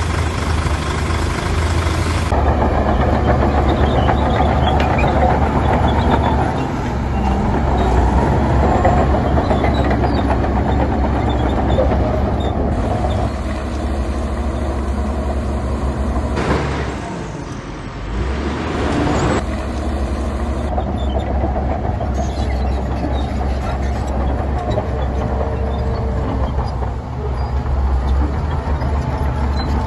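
Heavy diesel construction machinery running steadily under load, with a low engine rumble; the sound drops briefly about two-thirds of the way through.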